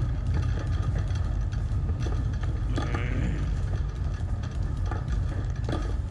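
Shopping cart rolling along a hard store floor: a steady low rumble from its wheels, with the wire basket clicking and rattling.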